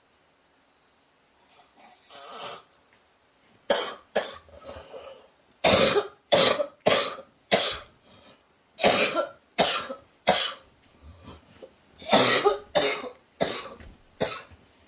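One faint snore, then a long fit of harsh coughs: about fifteen sharp coughs in clusters of three to five, starting about four seconds in.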